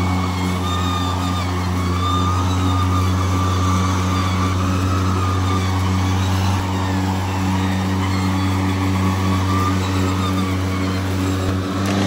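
Ego Power+ Select Cut XP 56-volt battery self-propelled lawnmower running steadily while mowing. It makes a constant electric motor and blade hum with a higher whine that wavers slightly in pitch.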